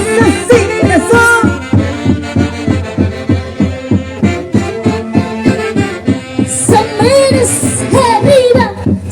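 Peruvian folk orchestra music with a steady, even beat under melody lines that bend up and down.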